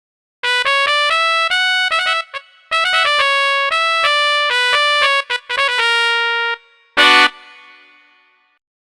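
A Korg iM1 synthesizer patch on an iPad playing a quick single-note melodic phrase in short bursts, then one short, loud chord about seven seconds in that rings out and fades.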